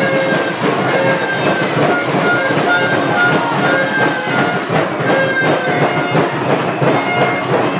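Music and crowd noise from the stands at a football game: dense drumming with short held notes over it.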